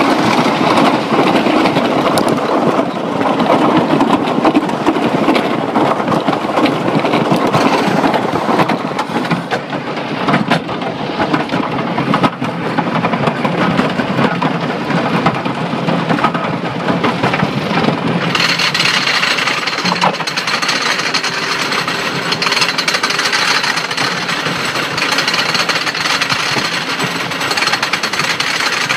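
Wooden roller coaster train rolling and rattling along its track, then, about two-thirds of the way in, a steady metallic clattering starts: the chain lift and anti-rollback dogs clanking as the train climbs the lift hill.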